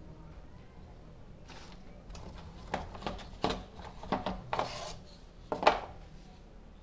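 Gloved hands pulling a cordless drill's battery pack out of its cardboard box: a quick run of cardboard scrapes and rustles with sharp plastic knocks, the loudest knock near the end.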